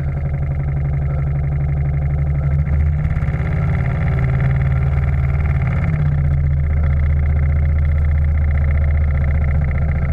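Steam launch's steam engine running steadily at speed, with a fast even beat.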